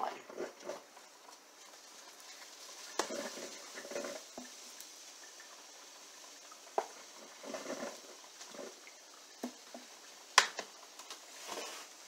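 Handling a plastic creamer bottle with a flip-top cap and pouring creamer into a coffee mug. There are soft pouring and handling sounds, a few clicks from the cap, and the sharpest click comes near the end as the cap is snapped shut, over a faint steady hiss.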